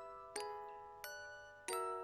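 Background music on a bell-like mallet instrument: chords struck three times, each ringing on and fading before the next.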